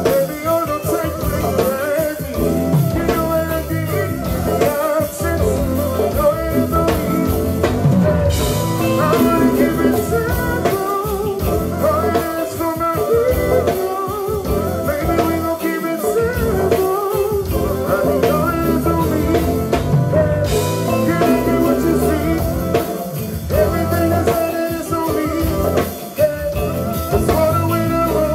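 Live band music with drum kit and guitar, with singing over it, played loud through a club PA.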